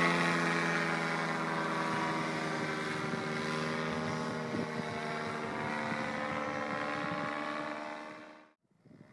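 Tandem paramotor's M25 engine and propeller running in flight overhead, a steady engine note that is loudest at first and dips slightly in pitch over the first couple of seconds. It fades and cuts off about eight and a half seconds in, leaving faint wind noise on the microphone.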